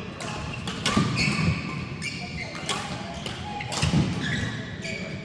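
Badminton doubles rally: rackets sharply striking the shuttlecock three times, a second or so apart, with shoes squeaking on the court between the hits.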